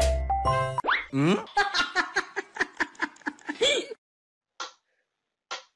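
A person giggling in a quick run of short laughing bursts, after a moment of music at the start. The laughter stops about four seconds in, and a few short, sharp sounds follow about a second apart.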